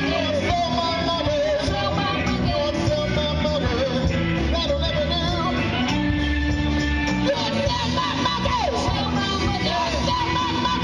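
Live rock band playing amplified: electric guitars, bass and drum kit keeping a steady beat, with a bending lead melody over them and a note held for about a second partway through.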